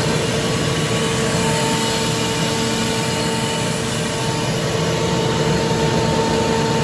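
LeRoi 25 hp rotary screw air compressor running steadily after start-up: an even rush of motor and air noise with a constant whine.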